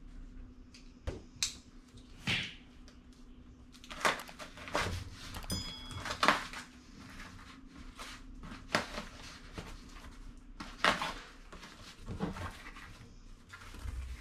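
A boxed set of plates being handled and unpacked: an uneven run of rustles, scrapes and knocks from the packaging, with a brief high ringing clink about five and a half seconds in, over a faint low hum.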